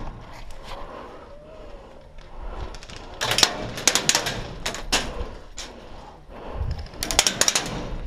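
Airsoft gunfire: a short burst of sharp snapping shots about three seconds in, a few single shots after it, and a quicker burst near the end.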